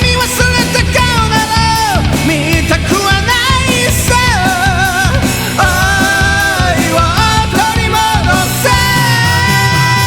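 Rock-band arrangement played on keyboards, with drums and bass under a wavering, vibrato-laden lead melody. Near the end it settles on a long held chord.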